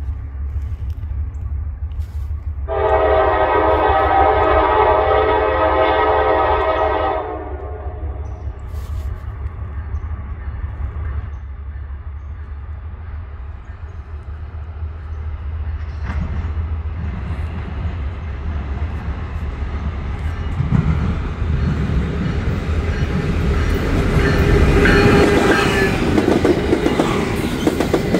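A Norfolk Southern diesel locomotive sounds one long blast on its air horn, a steady chord of several notes lasting about four seconds, over a low rumble. From about halfway through, the approaching coal train's engine and wheel noise grow louder toward the end.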